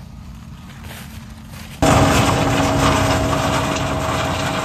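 A low rumble, then about two seconds in a John Deere combine harvesting corn cuts in abruptly and loud: its engine and threshing machinery running as a dense noise with a steady whine.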